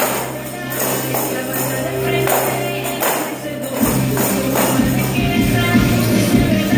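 Music with hand tambourines struck and shaken in time by a group of dancers, the jingles ringing on each beat. A heavier bass part comes in about four seconds in.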